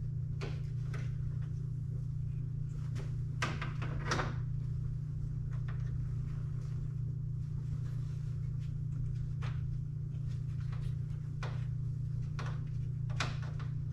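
Scattered light clicks and rustles of a wiring harness and plastic trim being handled and tucked up behind a grille opening, over a steady low hum.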